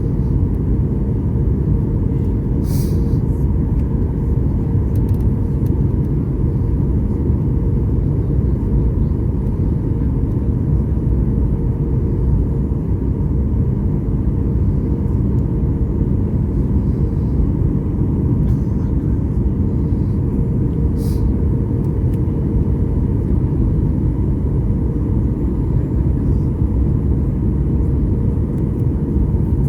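Steady low rumble of an airliner's cabin as it taxis after landing, engines at low power, with a faint steady hum over it. Two faint clicks come about three seconds in and again near twenty seconds.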